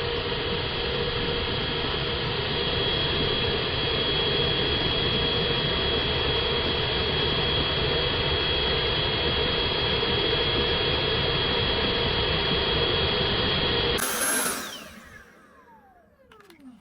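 Dyson cordless stick vacuum running steadily with a high whine while sucking up a dead fly. About fourteen seconds in it is switched off and the motor's whine falls in pitch as it spins down.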